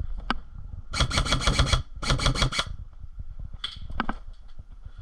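Airsoft gun firing two short bursts of rapid full-auto fire, about a second in and again just after two seconds, each a quick even rattle lasting under a second, with a couple of single shots or clicks around them.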